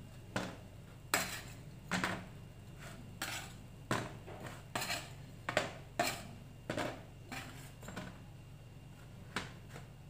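Metal slotted spatula scraping and clinking against a metal baking tray, about a dozen sharp strokes at an uneven pace, as baked roat biscuits are lifted off the tray and turned over.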